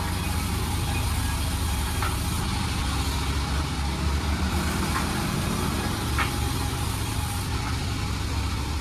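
Panda36 sawmill running steadily with a low engine-like hum, and a few faint ticks.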